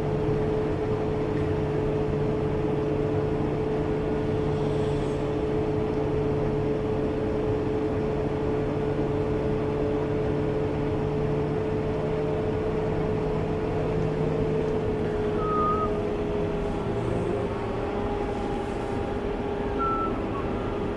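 Fendt tractor running steadily, heard from inside its cab: a constant engine drone with a steady whine over it. The low part of the drone drops away about three-quarters of the way through.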